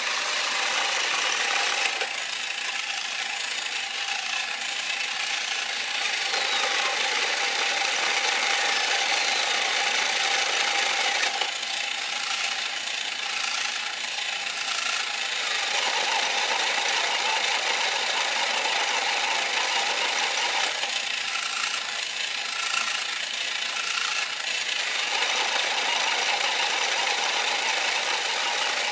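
Battery-operated tin Thunder Robot toy walking, its electric motor and gears running steadily with a mechanical rattle while the propeller on its head spins. Twice a short run of higher pulsing tones sounds over the running.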